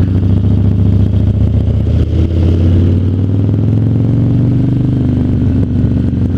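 Harley-Davidson motorcycle's V-twin engine running under the rider. About two seconds in, its pitch rises as the bike accelerates, then levels off.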